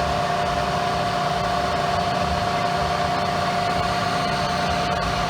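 Bridgeport milling machine running steadily: a constant whine with several steady tones over an even hum, unchanging throughout.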